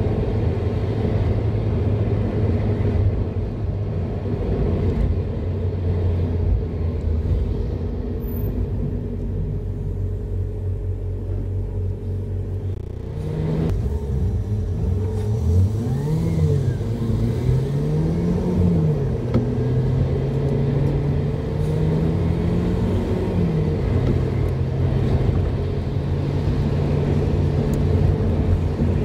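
Car engine heard from inside the cabin while driving, running at a steady note. About halfway through the sound changes abruptly, and the engine note rises and falls several times as the car pulls away and picks up speed, then settles back to a steady cruise.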